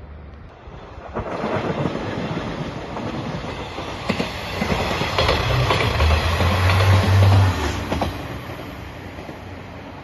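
Anpanman Torokko sightseeing train, a diesel railcar with an open trolley car, passing close by: wheels clatter over the rail joints and the engine hums low. It builds from about a second in, is loudest a little past the middle, then fades away.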